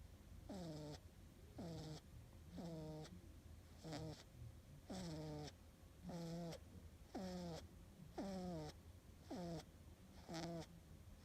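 A domestic cat snoring softly, a steady rhythm of about one snore a second, each one a short breathy note that drops in pitch.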